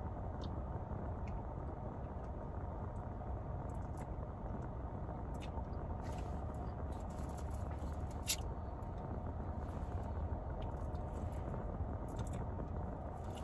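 Steady low rumble of background noise with a few small scattered clicks and taps, one sharper click about eight seconds in.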